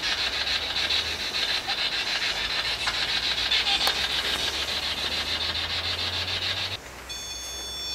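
Fast, rasping electronic static from a ghost-hunting device, which cuts off suddenly near the end. A steady, high electronic beep made of several tones then starts, the alarm of a ghost-hunting device going off.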